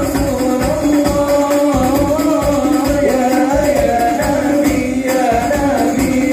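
Sholawat sung by a group of voices in unison over a rapid, dense beat of rebana frame drums, in the Banjari/Habsy style.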